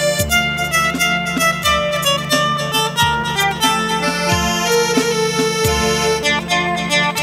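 Amplified mandolin playing a song melody in sustained, tremolo-like notes, over a steady low beat that thumps about every second and a half.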